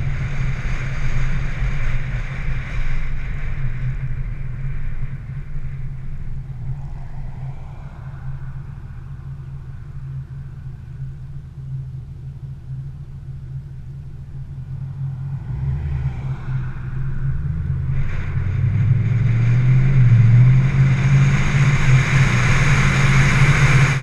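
Car engine running with a deep steady note, fading through the middle and growing louder again toward the end.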